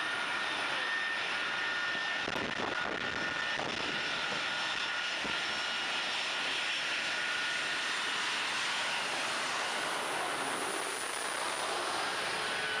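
KC-135 Stratotankers' CFM56 (F108) turbofan engines running at taxi power as the tankers roll past in line: a steady rushing noise with a high, even turbine whine.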